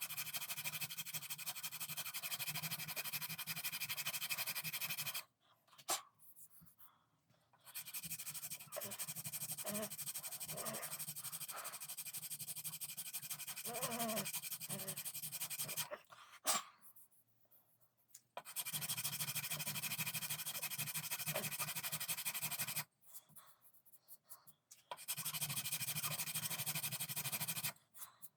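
Steady scraping and grinding of a tool working the horn inlay or wooden gunstock, in four spells of several seconds each that start and stop abruptly, with short quiet pauses between them.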